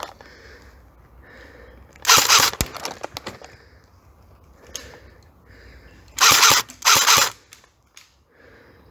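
Airsoft electric rifle firing full-auto bursts with a fast mechanical buzz: one burst about two seconds in, then two short bursts close together near the end.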